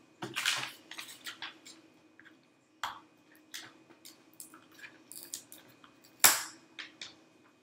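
Irregular small clicks and rustles of photo prints being pushed and straightened in painted wooden clothespins on a cardboard wheel, with the sharpest click about six seconds in.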